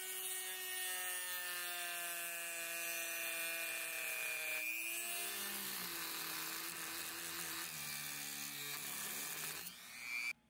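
Small electric power tool motor running under load. Its whine sags slowly in pitch over a hissing grind, drops lower about halfway through, and cuts off suddenly near the end.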